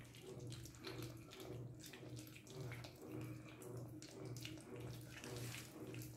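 American Staffordshire terrier puppies, about a month old, lapping and slurping soft wet food from a shared plate: a busy, irregular run of wet licks and smacks, over a low hum.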